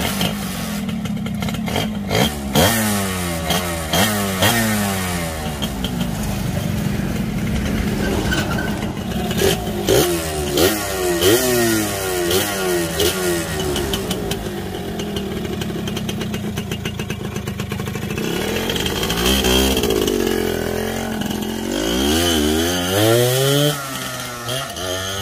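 Suzuki Xipo motorcycle fitted with a home-built two-cylinder two-stroke engine, running and revved in repeated quick throttle blips. Near the end it revs up in longer rising sweeps as it pulls away.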